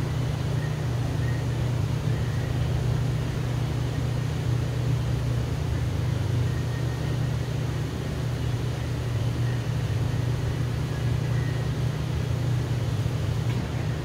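Steady low mechanical hum running without a break.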